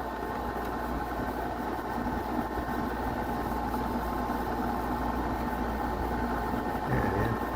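Small air conditioner running with a steady hum and whir.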